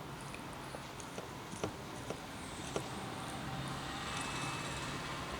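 Eating sounds: chewing with scattered small wet clicks and smacks of the mouth, over a faint steady low hum.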